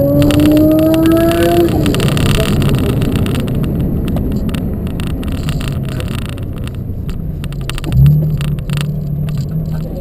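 Porsche 718's 4.0-litre flat-six accelerating, its note rising in pitch for about the first two seconds, then falling away to steady tyre and road noise that slowly fades. About eight seconds in, a sudden loud rev settles into a steady engine note.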